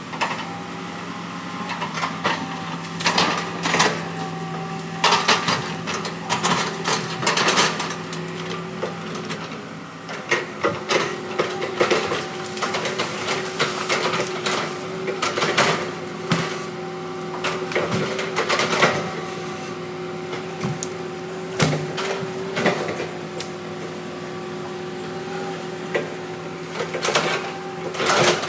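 Heavy diesel earthmoving machine running steadily, with frequent sharp metallic clanks and knocks.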